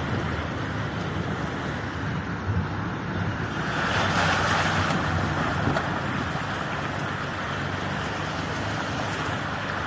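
A vehicle driving through floodwater: its engine runs low and steady under a rush of water churned up by the tyres, which swells for a couple of seconds about four seconds in.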